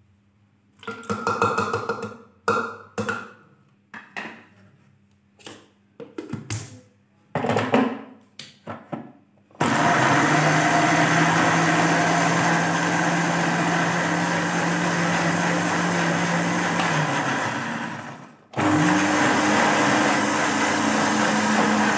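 Clinks and knocks of dishes and the glass jar being set on the base, then about ten seconds in an electric blender (mixer grinder) switches on and runs steadily, grinding fried onions with yogurt into a paste. Near the end it winds down, stops briefly and is switched on again, running at a higher pitch.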